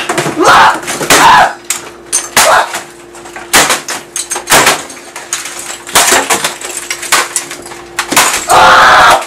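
A man yelling in a rage and hitting and smashing things, with hard bangs and crashes every second or two. It is deliberately over-amplified, so the sound is harsh and clipped.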